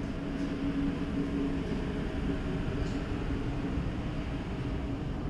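Steady low rumble of city street traffic, with a steady hum that fades out about two seconds in.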